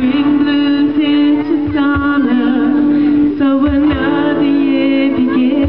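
Live acoustic song: a woman singing long, wavering held notes over acoustic guitar, with soft low cajon beats underneath.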